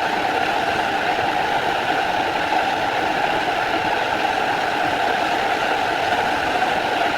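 Machine tool, most likely the milling machine cutting the helical gear, running with a steady, unchanging mechanical hum.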